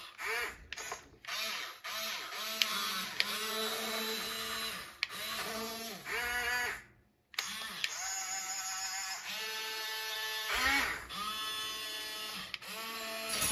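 Diecast Masters 1:24 RC Cat 336 excavator's sound module playing its simulated engine noise over the whir of the small electric motors driving the boom, stick and bucket, rising and falling in pitch as each move starts and stops. A couple of sharp clicks come about two and a half and five seconds in, the clicking this model makes when an arm function reaches its limit.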